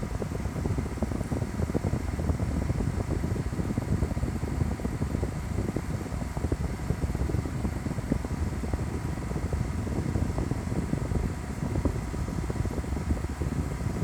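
Celcia WAP-02EA20 portable air conditioner running steadily after being switched on: a low, even fan noise with a faint thin whine above it.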